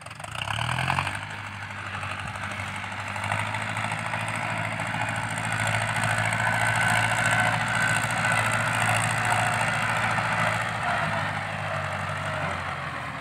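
Ford 6640 farm tractor's diesel engine running steadily under load with a harsh exhaust note as it pushes soil to level a field. It grows louder through the middle as it comes closer, then eases slightly near the end.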